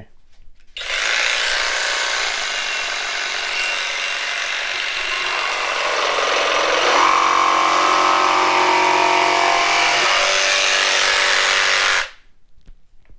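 Flex cordless jigsaw with a clean wood blade cutting through a poplar board. The saw starts about a second in and runs steadily under load, its tone shifting partway through the cut, then stops suddenly near the end.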